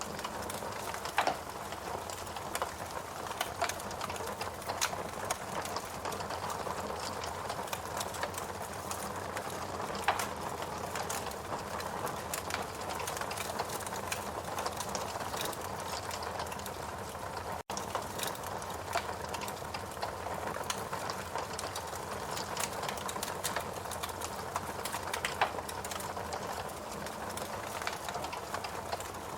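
Wood fire burning in a fireplace: a steady hiss with frequent small crackles and a few louder pops. The sound drops out for an instant just past halfway.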